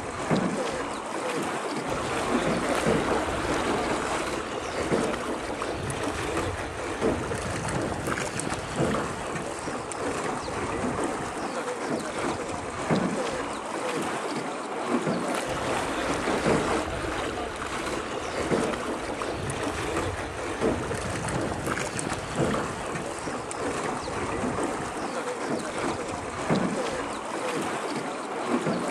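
Oar strokes of a small rowed sampan, a splash and swish in the water about every two seconds, over a steady rush of wind and water noise.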